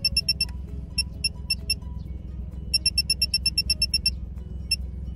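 OBD2 smart gauge's overspeed alarm beeping: high electronic beeps about eight a second, breaking into a few spaced beeps about a second in, a second rapid run about three seconds in, then single beeps near the end. It signals that the car is above the 40 km/h speed alarm set point. A steady low road and engine rumble runs underneath.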